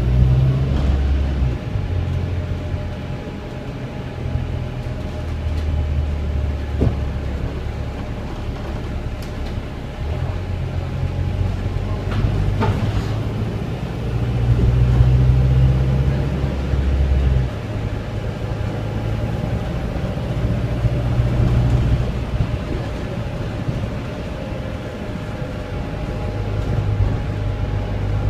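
Volvo B5LH hybrid bus heard from inside the saloon while under way: a low drone from its four-cylinder diesel and drivetrain that shifts in pitch and level every few seconds as the bus accelerates and eases off, with a few light knocks and rattles from the body.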